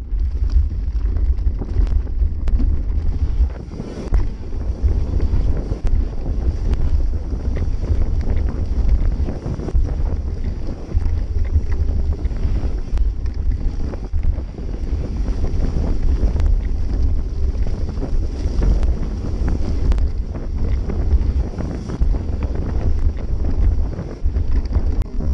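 Wind buffeting the microphone of an action camera mounted on a mountain bike at speed, over the rumble of knobby tyres on a dirt trail and constant clicks and rattles of the bike over rough ground.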